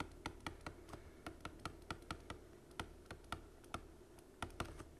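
A stylus clicking and tapping on a pen tablet while capital letters are handwritten. It makes a quick, uneven run of quiet clicks, several a second, with a short pause about two and a half seconds in.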